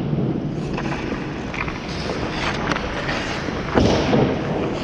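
Ice skate blades gliding and scraping on ice, with wind rushing over the microphone as the skater moves; a louder scrape comes about four seconds in.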